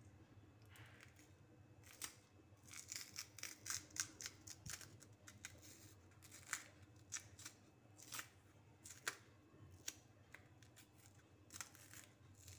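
Knife and fingers working the thick green skin off a raw nendran plantain: a run of short, irregular, crisp scrapes and snaps as the peel is pried up and torn away in strips.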